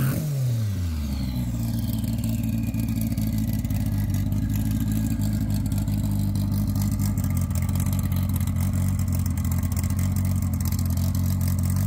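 A drag-racing car's engine falls from a rev back down to idle within the first second, then idles steadily for the rest of the time.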